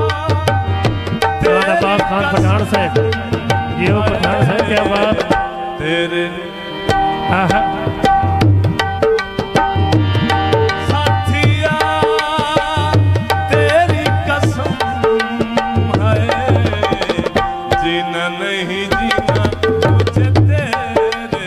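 Instrumental interlude of a Punjabi folk song: a hand drum plays a steady rhythm under a melody of held notes and wavering runs.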